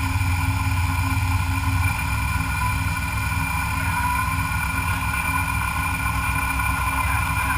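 CNC milling machine running steadily: a constant low hum with several steady whining tones above it, the low hum easing slightly about two seconds in.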